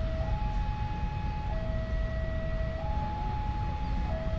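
Railway level-crossing warning alarm sounding a two-tone hi-lo signal, each tone held about a second and a quarter before it switches. Beneath it is the low rumble of a KAI CC 206 diesel-electric locomotive moving slowly.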